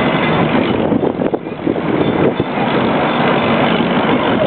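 Miniature park train running, heard from a seat in one of its open passenger cars: a steady running noise that dips briefly about a second in.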